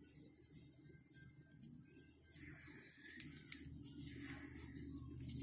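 Faint crinkling of a plastic spice packet as Cuban spice blend is shaken out over raw chicken breasts, with a few light ticks about three seconds in.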